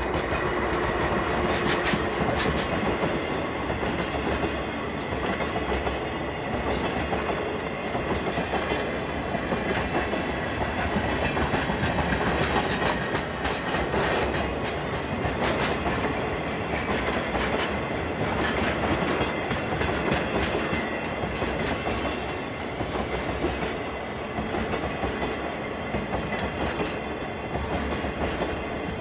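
Freight train of tank cars rolling past, wheels clicking steadily over rail joints.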